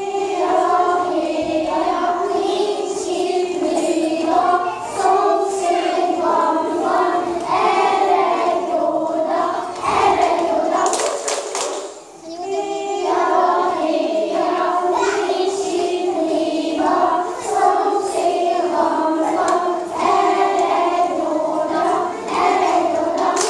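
A group of young children singing a song together in unison, with a short break about halfway before the next verse.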